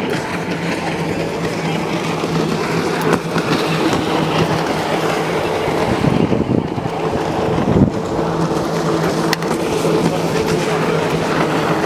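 Jet ski engine running steadily under a constant rush of wind and water noise, its pitch bending briefly a little past the middle.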